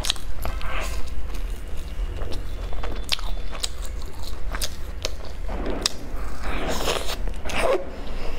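Close-miked biting and chewing of fried pastry, with irregular crunches and crackles as the fried crust is torn and eaten.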